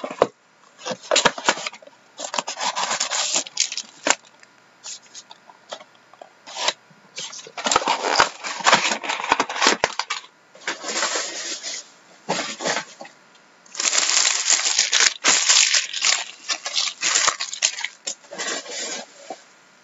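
Cardboard hobby box of Panini Certified hockey cards being handled and its foil card packs pulled out and stacked, crinkling and rustling in irregular bursts with short pauses between them.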